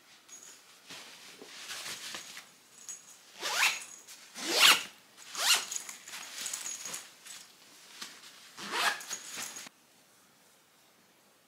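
Zipper on a fabric packing cube being pulled shut in several quick rasping strokes, the loudest about four and a half seconds in, with cloth rustling between them; it stops abruptly near the end.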